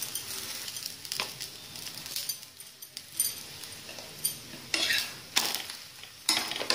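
Methi thepla sizzling in oil on a hot tawa, with several clinks and scrapes of a steel spoon and spatula against the pan as oil is spread over the flipped flatbread; the scraping is loudest in the second half.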